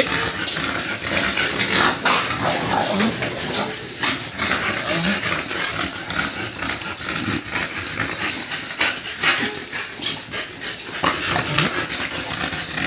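Hands scrubbing a wet, heavily lathered dog's coat: a dense run of rapid wet rubbing. A dog gives a few short low vocal sounds along the way.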